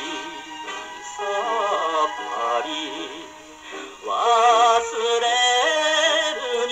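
A 78 rpm record of a Japanese popular song played acoustically on a portable phonograph with a steel needle: a male singer with orchestral backing, thin-sounding with no deep bass, over steady surface hiss. A strong sung line with wide vibrato comes in about four seconds in.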